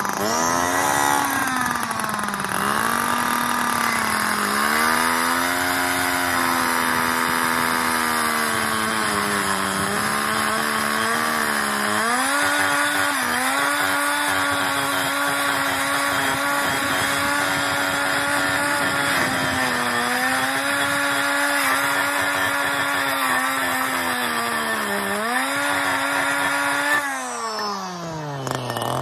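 Two-stroke petrol disc cutter running at high revs while cutting through concrete paving flags, the engine note sagging and recovering several times as the blade bites. Near the end the revs drop steeply away toward idle.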